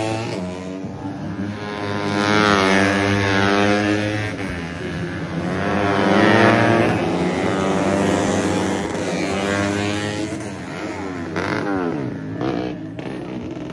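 A pack of 125cc four-stroke underbone race motorcycles passing at high revs, their engine notes swelling and falling in several waves as the bikes go by. The pitch drops as the last bikes pass, and the sound fades near the end.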